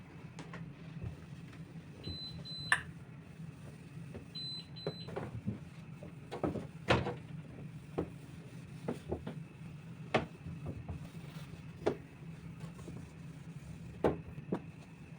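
Kitchen items being handled and set down: a scatter of sharp clicks and knocks, with two short runs of high electronic beeps, over a steady low hum.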